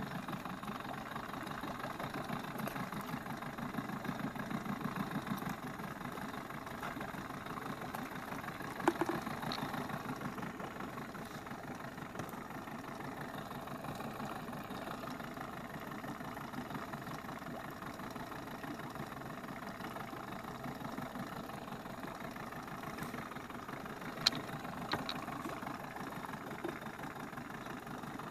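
An engine running steadily at a low idle-like speed, with a fast even pulsing, and a couple of short sharp clicks about nine seconds in and near the end.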